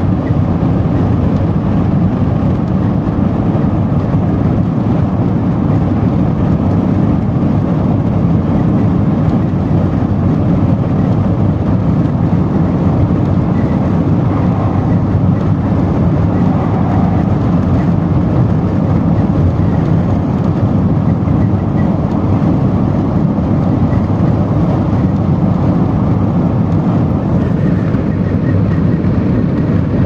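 Airliner cabin noise in cruise: a steady, unchanging deep rush of jet engines and airflow heard from inside the cabin.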